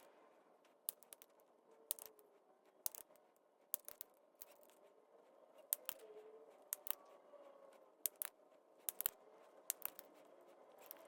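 A hand cutting tool clicking sharply again and again on a 1/16-inch hex-shank drill bit, often two clicks close together. The jaws are not biting through the hardened steel.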